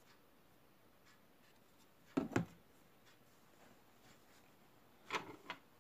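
Hard plastic packaging being handled by hand: two sharp clacks about two seconds in, then a quick run of clicks and rubbing near the end. A faint tick about once a second runs underneath.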